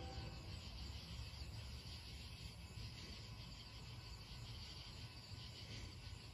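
Crickets and other night insects chirping steadily, over a faint, steady low rumble.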